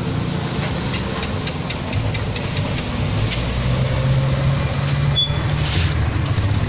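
An engine running close by with a steady low hum, growing louder about three seconds in.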